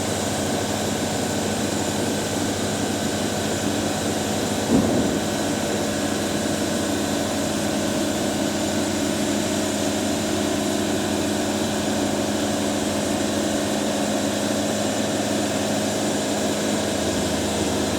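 Milling machinery running with a steady drone made of several held tones, and a brief louder sound about five seconds in.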